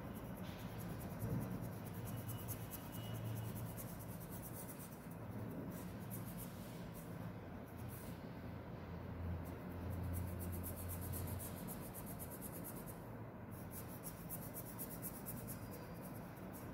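A pen scratching in short strokes on paper while drawing, over a steady low hum.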